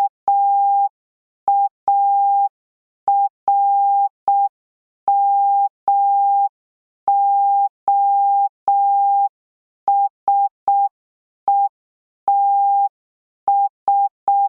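Morse code practice tone: a single steady beep keyed on and off in short dots and long dashes at an even, slow pace, spelling out the word "marmosets".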